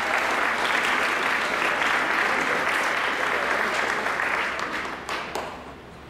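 Audience applauding steadily, then dying away to a few last claps near the end.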